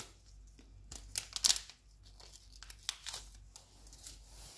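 Sealed wrapper of a pregnancy test strip being torn open and crinkled by gloved hands, in irregular short crackles.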